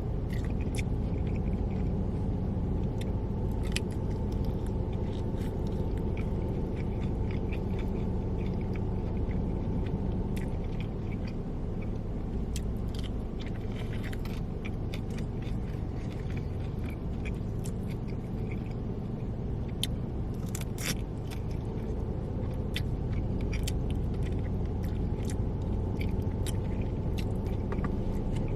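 Close-up eating sounds: a person biting and chewing fried food, with many short sharp clicks and crunches scattered throughout. A steady low rumble runs underneath.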